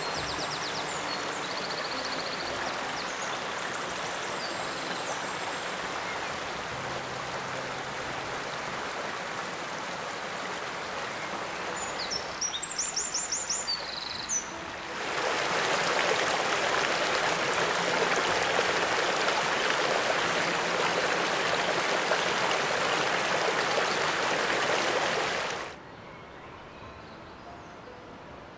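Steady rush of a woodland stream, with small birds giving high, quick notes in the first few seconds and a rapid run of high notes about halfway. The water then turns louder and fuller, and near the end it cuts off abruptly to a much quieter background.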